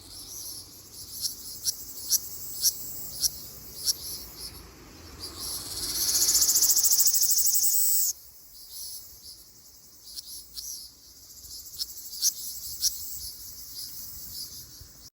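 Ryukyu large brown cicada singing: a loud, high buzz that swells up about five seconds in and cuts off abruptly about three seconds later. Short, sharp, high chirps repeat every half second or so before and after it.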